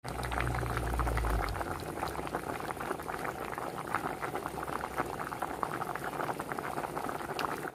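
Pork sinigang soup at a rolling boil in a metal pot: a dense, steady bubbling and popping, with a low rumble underneath for the first second and a half.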